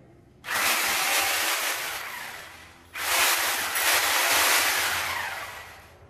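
Corded hand-held angle grinder run twice in short bursts, its disc spinning with a loud hissing whir that starts suddenly and fades away over about two seconds each time.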